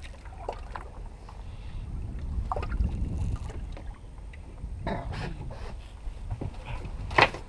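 Low wind rumble and water noise around a small fishing boat, with scattered light knocks of handling on the deck and one sharp knock near the end.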